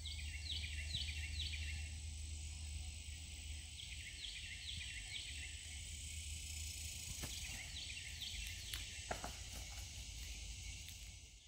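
Summer woodland insects droning steadily at a high pitch, with a bird singing a phrase of about four quick falling notes three times, a few seconds apart. A low steady rumble lies under it, and a couple of sharp ticks come near the end.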